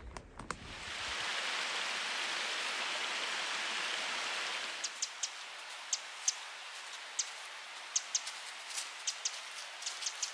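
Running water outdoors: a steady rushing hiss for a few seconds, then a quieter trickle with irregular small splashes or drips.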